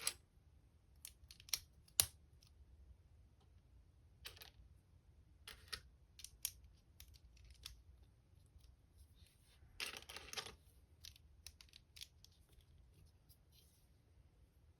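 LEGO bricks being handled and pressed together: scattered sharp plastic clicks and taps, with a longer rustling scrape about ten seconds in.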